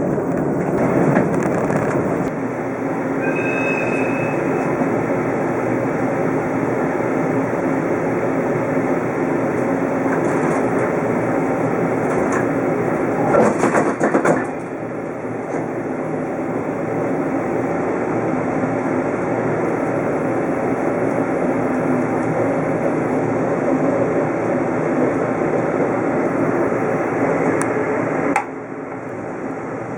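Running noise of a 24-series sleeper coach under way: a steady rumble of wheels on rail, with a short high squeal a few seconds in, a louder burst just before the middle, and a sudden drop in level near the end.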